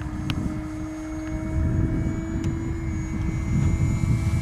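Flite Test Freedom Fox RC plane's electric motor and propeller whining steadily at full throttle in a fast pass, over a gusty low rumble.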